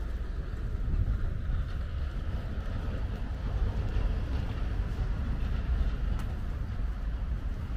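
Wind buffeting the microphone: a low, gusty rumble with a steady hiss above it.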